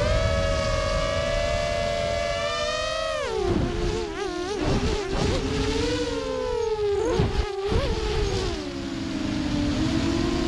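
Whine of an FPV model aircraft's electric motors and propellers heard from the onboard camera, with wind rumbling on the microphone. The pitch holds high, drops sharply about three seconds in, wavers up and down through the middle as the throttle changes, then settles lower and steady near the end.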